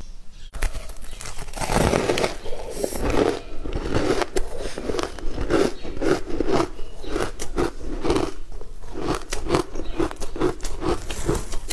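Close-miked biting and chewing of a crunchy, icy dessert: dense crunching at first, then steady chewing at about two chews a second, with sharp crackles over it.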